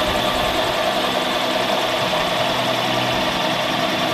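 Small benchtop metal lathe running steadily, its motor and gearing giving an even hum of constant pitch, while the tool takes a light cut on the metal rear barrel of a camera lens.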